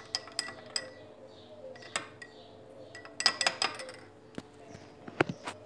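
A spoon clinking against a glass mixing bowl and a drinking glass while dough ingredients are measured in. The clinks come in a few quick clusters, with single sharp knocks near the end.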